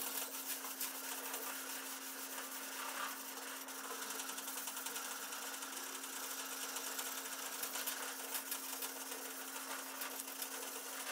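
Sandpaper rubbed by hand back and forth over the sheet-metal car tail section, a continuous scratchy rasp, giving the metal a brushed finish that shows up where the shape stands. A steady low hum runs underneath.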